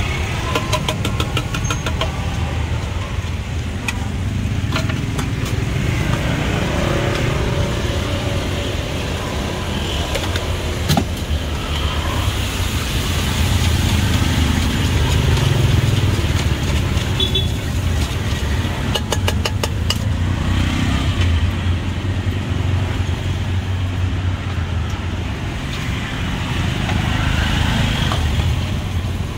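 Street traffic running steadily past, a constant low rumble of cars and motorbikes, with a few bursts of rapid sharp clicks and a single knock partway through.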